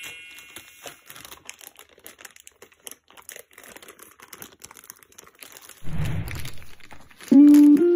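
Clear plastic zip-top bag of beads crinkling and rustling as it is picked up and handled, with faint scattered crackles. A louder low thump comes about six seconds in. Music with sustained notes starts near the end.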